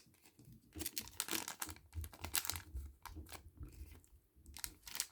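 A blind bag's packaging being handled and opened, with irregular crinkling and crackling of the wrapper throughout.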